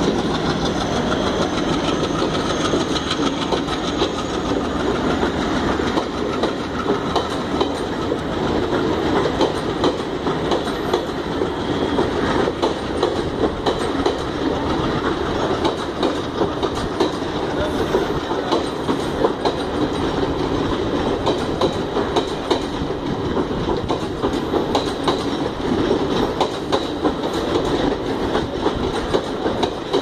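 Passenger coaches rolling past, their wheels clattering over rail joints and points in a continuous run of clacks and knocks over a steady rumble.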